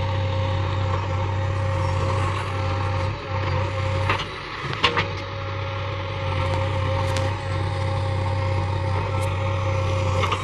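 A heavy diesel engine running steadily at an even speed, with a few short knocks or clicks about four, five, seven and nine seconds in.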